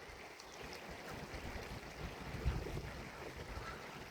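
Wind buffeting the microphone in uneven low rumbles, over a faint steady outdoor hiss.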